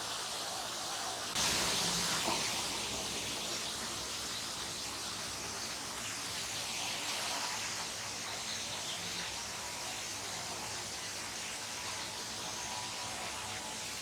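Steady outdoor hiss with no clear tones, stepping up in level about a second and a half in.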